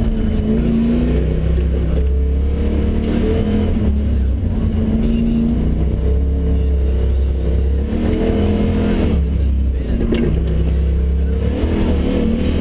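Car engine heard from inside the cabin during an autocross run, its revs rising and falling over and over as the driver accelerates and lifts between the cones.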